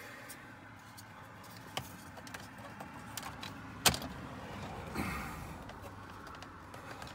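Clip-on plastic dash trim panel being pressed into place by hand: light plastic clicks and rubbing, with one sharp click about four seconds in and a short scraping rustle about a second later.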